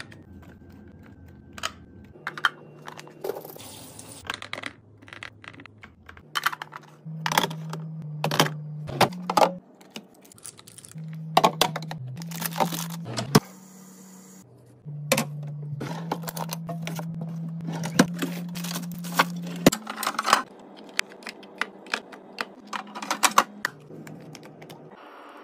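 Quick clicks, taps and knocks of plastic containers, lids and bottles being handled and set down while a fridge is restocked, in irregular clusters with a low steady hum beneath the busiest stretches.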